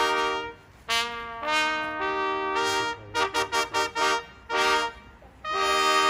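Ensemble of brass hunting horns playing traditional Austrian hunting music: a held chord, then runs of short repeated notes, breaking off briefly before a long sustained chord near the end.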